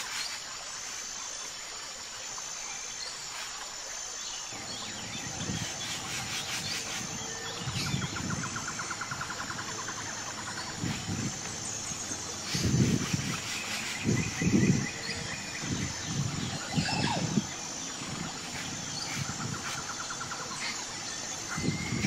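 Outdoor natural ambience: a faint high chirp repeating about once a second and short buzzing trills. Brief low rumbles come in about four seconds in and grow louder in the second half.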